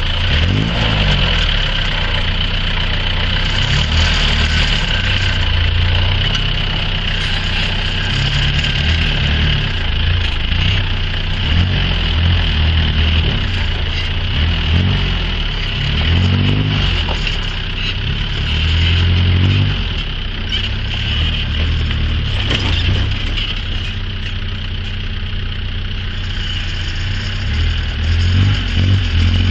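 Engine of a Nissan 4x4 pickup truck running at low speed, its pitch rising and falling again and again as it is given gas to crawl over loose river stones. A steady high-pitched hum sits behind it throughout.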